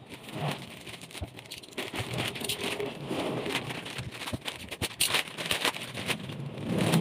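Black plastic courier bag crinkling and rustling as a tape-wrapped cardboard box is slid out of it, with a few light knocks from the box.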